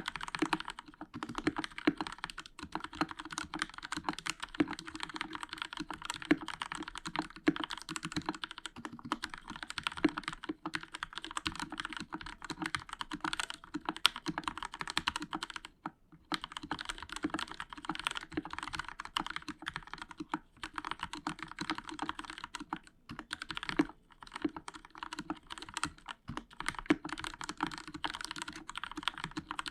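Continuous fast typing on a Royal Kludge RK61 60% mechanical keyboard with linear Outemu Red switches, foam under the PCB and lubed stabilizers: a dense stream of key clacks with brief pauses around a third and four-fifths of the way through.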